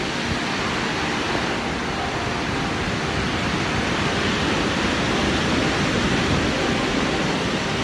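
Ocean surf breaking on a beach, a steady, even rushing hiss, mixed with wind buffeting the phone microphone.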